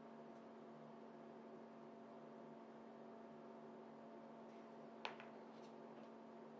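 Near silence with a steady low electrical hum. A single sharp click about five seconds in, as a small carving tool is set down on the wooden worktable.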